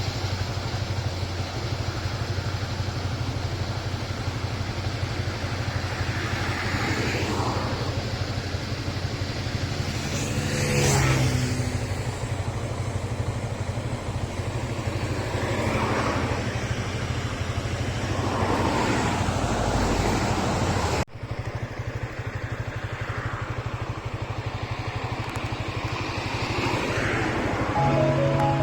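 Diesel engine of a Sumitomo 200 excavator running steadily, its note swelling and falling away several times as it works. The sound cuts off abruptly about three-quarters of the way through and resumes.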